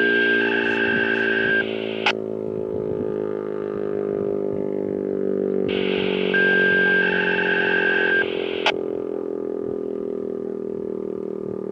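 American Signal T-135 rotating electronic siren sounding a steady test tone whose pitch slowly sinks. It swells louder and brighter about every six and a half seconds as the rotating head sweeps past, and each swell ends with a short sharp click.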